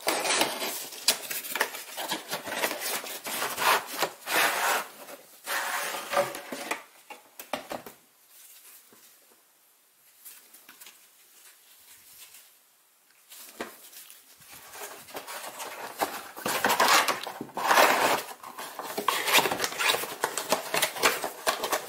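Handling noise of a MAHLE panel air filter and its cardboard box: the box and the filter's plastic frame are rubbed and scraped as the filter is slid out and back in. There is a quieter pause of a few seconds in the middle.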